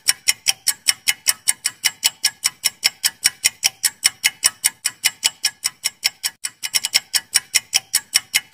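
Clock-ticking sound effect for a quiz countdown timer: sharp, even ticks at about four a second, briefly uneven about two-thirds of the way through.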